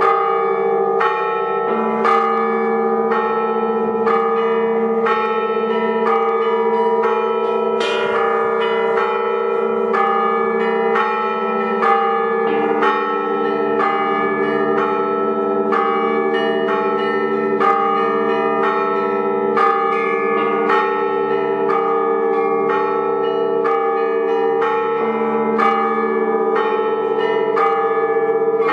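A set of many bells on a belfry rung by a bell ringer in continuous peals: smaller bells struck about twice a second in quick patterns, over the hum of larger bells that keep ringing underneath. Deeper bells join about a second and a half in and again about twelve seconds in.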